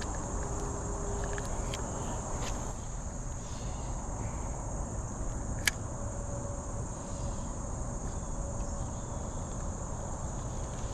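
Steady high-pitched insect chorus over a low, even rushing noise, with one sharp click a little past halfway.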